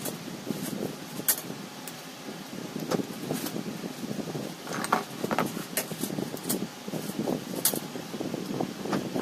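Scattered sharp metallic clicks and clinks of hand tools and parts being handled on a STIHL MS180 chainsaw under repair, over a steady low rumble of background noise.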